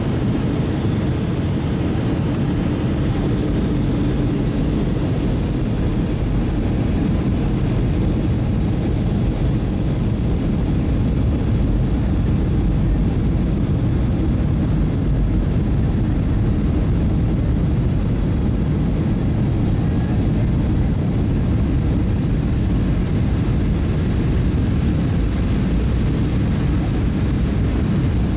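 Steady low rumble of engine and airflow noise inside the cabin of a Boeing 757 airliner on approach to landing.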